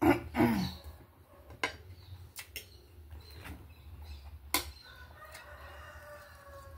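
Metal cutlery clinking on a plate a handful of times while eating, after a short voiced sound at the start. Near the end, a long call falls slowly in pitch in the background.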